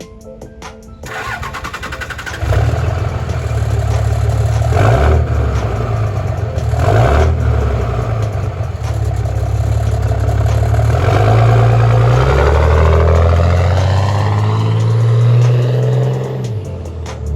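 5.9L Cummins inline-six turbo diesel in a 2006 Dodge Ram 2500, exhausting through a stack pipe, cranking over and starting, then revved several times: two short blips, then longer, higher revs before settling back down near the end.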